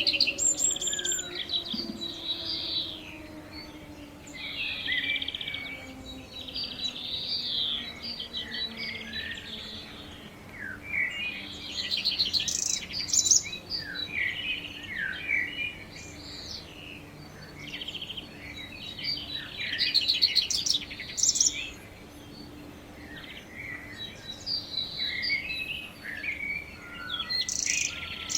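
Songbirds chirping and singing throughout. In the first few seconds an outdoor warning siren winds down, falling in pitch as it fades.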